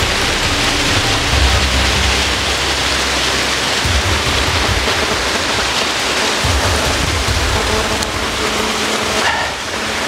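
Water rushing down a small waterfall on a burn: a loud, steady hiss, with a few low thumps.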